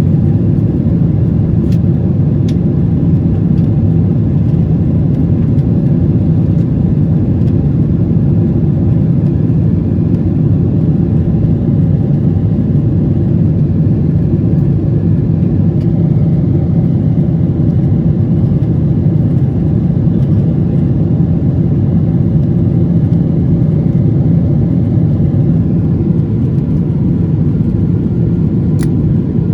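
Aircraft engines and airflow making a steady, loud low rumble that holds unchanged throughout.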